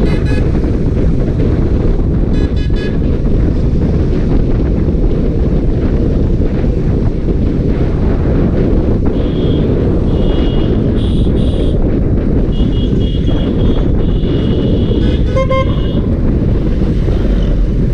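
Wind rushing over the microphone of a moving motorcycle, with the ride's low rumble underneath. Vehicle horns toot several times in short beeps, once a few seconds in and then repeatedly through the second half.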